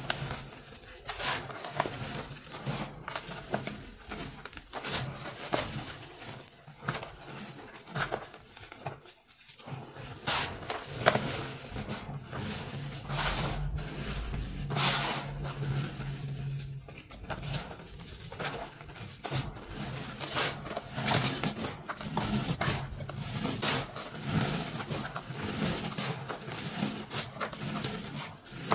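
Hands rubbing, squeezing and sifting crushed powder and crumbs of powdery blocks mixed with glitter: soft gritty crunching and scraping with irregular sharp crackles.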